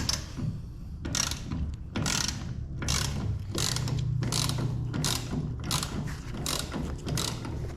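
Hand ratchet being worked back and forth, about two strokes a second, tightening a stiff nylon lock nut on a toolbox wheel's axle bolt.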